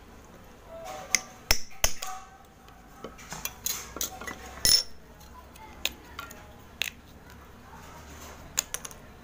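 A metal knife scraping and chipping a dry block of multani mitti (Fuller's earth clay). It makes irregular sharp clicks and short crisp scrapes as flakes break off, the loudest about halfway through.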